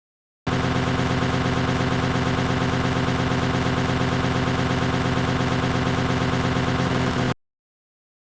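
A machine running steadily at a constant speed with a fast, even pulse. It cuts in abruptly about half a second in and cuts off just as abruptly near the end.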